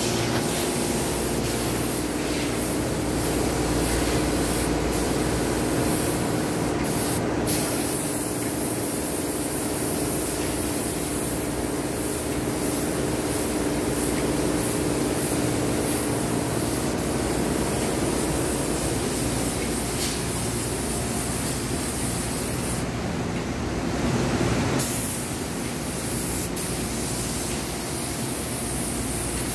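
Paint spray gun on an air hose hissing steadily as it sprays paint, with a steady low hum underneath.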